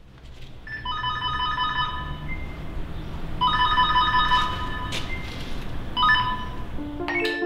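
An electronic ringing tone sounds in two long rings of about a second and a half each, with a third starting about six seconds in, over a low background rumble.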